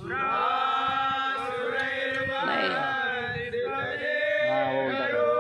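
A group of men's voices chanting together in long held notes.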